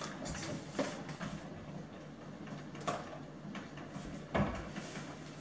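Faint knocks and handling sounds, with a stronger low thump about four and a half seconds in as a kitchen cupboard door is pushed shut.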